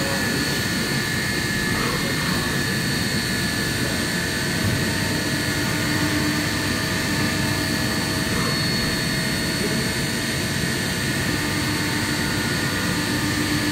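Haas TM-3 CNC mill running, a steady machine noise with a constant high whine and a lower hum that fades in and out.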